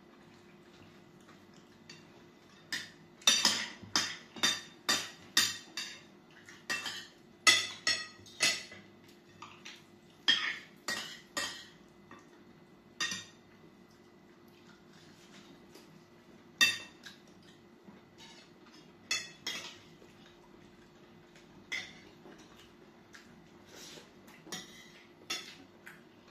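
Metal forks and spoons clinking and scraping against glass bowls and plates while eating, in irregular clusters of sharp clinks, with a faint steady hum underneath.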